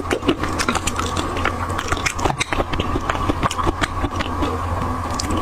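Close-miked chewing and sucking on chili-marinated shrimp: many small wet clicks and crackles, over a steady low hum.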